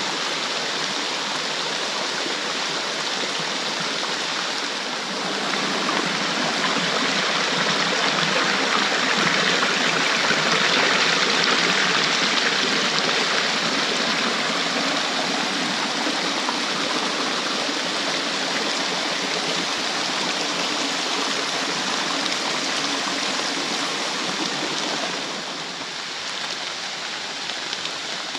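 A fast-flowing stream rushing steadily, swollen by heavy rain. It grows louder about five seconds in and drops back a little near the end.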